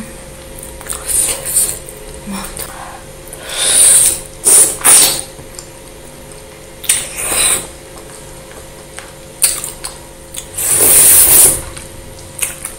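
Close-miked eating sounds: sucking and slurping meat off a beef rib bone, in several loud slurps with smacking clicks between, the longest slurp near the end.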